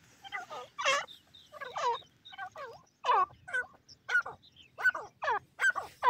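Grey francolin calling: a series of short notes that each fall in pitch, roughly two a second, coming faster toward the end.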